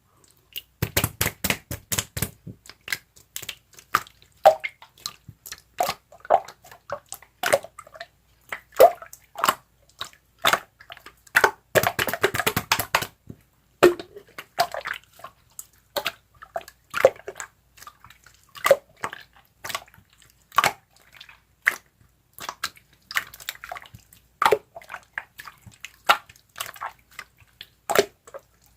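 Slime being squeezed and poked by hand, giving an irregular run of wet clicks and pops, with a dense flurry of them about twelve seconds in.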